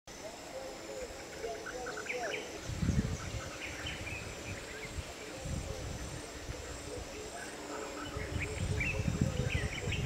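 Woodland ambience: a steady high-pitched drone of insects with short bird chirps scattered through it. Bouts of low rumbling come about three seconds in and again from about eight seconds.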